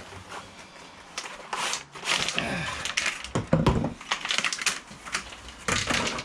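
Handling noises from wiper blades being sorted out: a run of plastic clicks and knocks with some rustling, and one heavier knock about three and a half seconds in.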